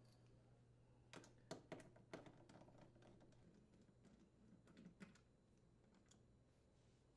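Faint clicks and taps of a Torx screwdriver working screws out of a dishwasher's door panel: a quick cluster of about half a dozen between one and two seconds in, and a few more around five seconds.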